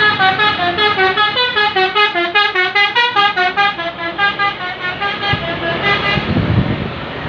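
Tour bus's multi-tone 'telolet' musical horn (basuri) playing a rapid melody of short stepped notes, about five a second, stopping about six seconds in. A low rumble rises near the end.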